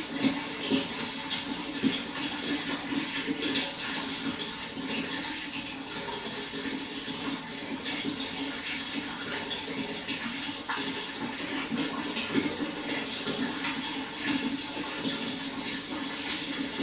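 Flowing water: a steady rush with many small splashes and gurgles running through it.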